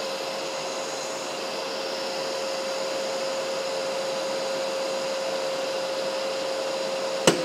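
Festool CTM 36 E AC M-class dust extractor running steadily, its motor noise carrying a steady tone. Near the end, a single short sharp thump: the AutoClean giving the filter one hit to knock the dust off.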